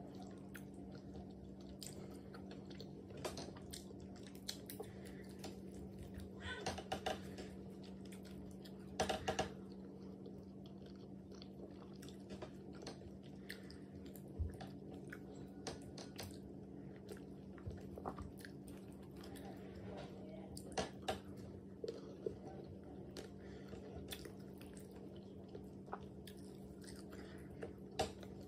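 Close-up chewing and wet mouth smacks of a person eating soft pounded yam and black soup, with irregular clicks and a few louder smacks about seven and nine seconds in, over a steady low hum.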